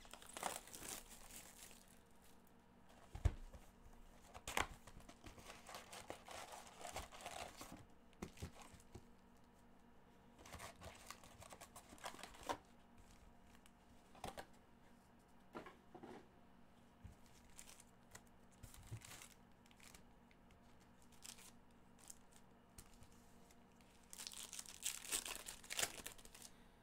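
Trading-card retail box being torn open by gloved hands, with scattered crinkling and rustling of wrapper and cardboard and a single knock about three seconds in. Near the end, a denser run of crinkling as a card pack's wrapper is torn open.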